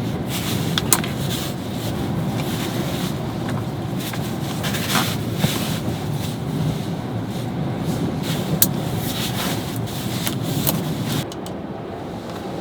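Steady low rumble of strong, gusty sea wind, with scattered sharp clicks and knocks. The rumble drops a little about eleven seconds in.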